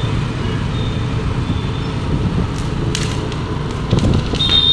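Steady low rumble of road and wind noise from a moving vehicle, with a couple of sharp clicks and a short high-pitched tone near the end.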